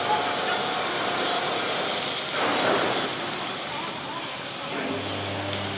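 Machine-shop machinery running with a steady hissing noise; a low steady hum sets in near the end.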